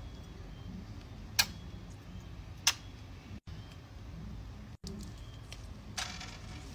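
Two sharp clicks or pops about a second apart, over a low steady background hum, with a brief rustle near the end.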